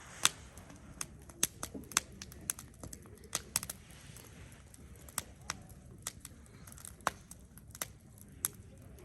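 Burning firewood crackling, with irregular sharp pops of varying strength over a low steady hiss.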